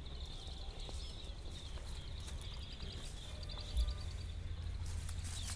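Outdoor background: a steady low rumble on the microphone with faint, rapid high-pitched chirps in trains, and one dull bump a little under four seconds in.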